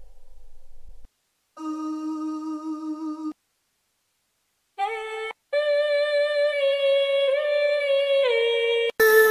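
Wordless vocal samples played one after another with silent gaps: a solo voice sings single held notes, the last a long high note with small ornamental pitch turns and a step down near the end. Something fuller and louder starts just before the end.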